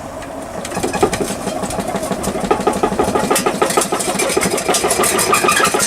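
Homemade vibrating tumbler driven by a washing machine motor on a DC speed controller, running and shaking its table with a dense, rapid rattle. The rattle builds up over the first second or so as the motor comes up to speed, then keeps going steadily.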